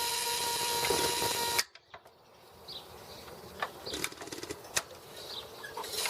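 Trembler buzz coil of an antique hit-and-miss farm engine's ignition buzzing steadily, then cutting off suddenly about a second and a half in. Scattered light clicks and ticks follow, with no regular firing from the engine, and the coil buzzes briefly again at the very end.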